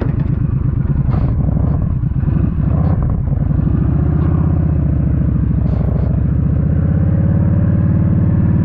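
Motorcycle engine running under way, heard from the rider's position. It dips briefly about two and a half seconds in, then its pitch climbs steadily as the bike accelerates.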